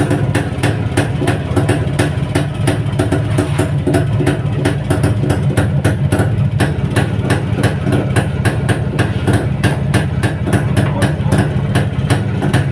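Single-cylinder two-stroke engine of a 1962 Jawa 250 motorcycle idling steadily: a low drone with a sharp, even beat about four to five times a second.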